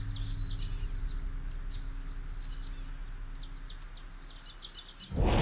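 Small songbirds chirping in short high phrases, three bursts with brief gaps between them, over a faint low steady hum. Near the end a sudden loud burst of music cuts in.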